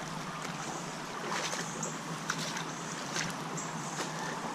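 Shallow creek water running steadily, with a few faint knocks scattered through it.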